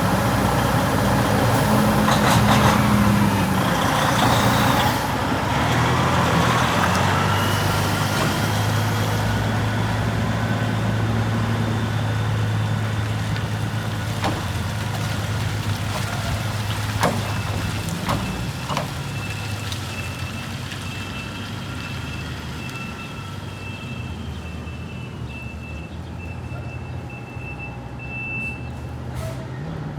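Heavy truck engine running at low speed while the truck manoeuvres, with a few sharp clicks around the middle. Over the last several seconds a rapid repeating high beep sounds, typical of a reversing alarm.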